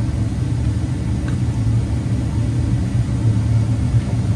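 Steady low mechanical rumble, like an engine or machine running, with a faint click about a second in.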